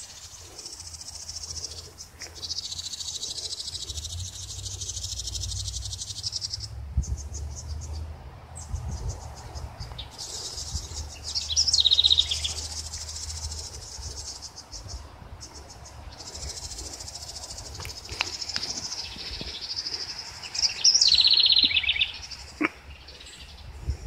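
Insects trilling in a high, finely pulsed buzz that swells and fades, with a bird singing a short descending trill twice, about halfway and near the end, over a low rumble of wind on the microphone.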